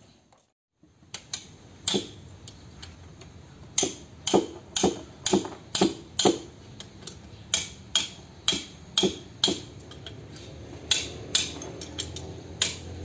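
A steel box-end wrench clicking on the bolts of a truck differential's drive pinion bearing retainer as they are tightened: sharp metallic clicks starting about a second in, coming in runs of about two a second with short pauses between.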